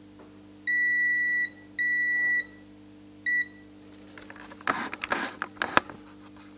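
ANENG Q1 digital multimeter's continuity buzzer beeping three times, two longer beeps and a short one, as the test probes touch the pins of the removed IC, a sign of a short across them that marks the IC as faulty. About five seconds in comes a second of rustling and clatter.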